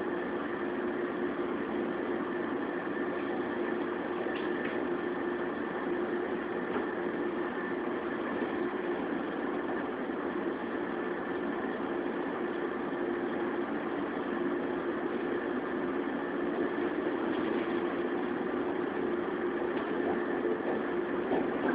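JR 115 series electric multiple unit, heard inside the motor car MoHa 115-1081, pulling away from a station and gathering speed under resistance control. A steady hum runs under the running noise, which grows a little louder in the second half.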